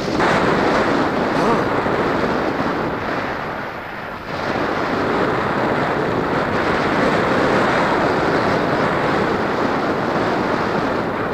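Wind rushing over the microphone of a paraglider in flight: a steady noisy rush that eases briefly about four seconds in.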